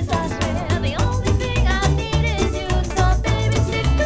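Background music: a song with a singing voice over guitar and a steady beat.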